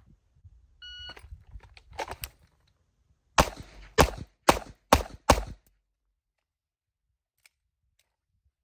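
A shot timer beeps once about a second in, signalling the start of a timed string, then a pistol fires five quick shots about half a second apart, beginning about two seconds after the beep.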